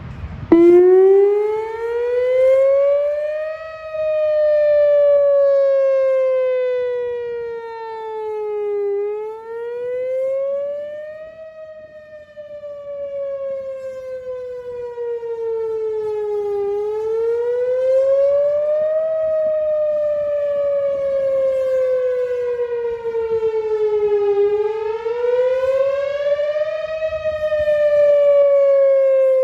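Outdoor tornado warning siren sounding a wail. It starts about half a second in, and its pitch climbs for about three seconds and falls for about five, over and over, swelling and fading in loudness as it goes.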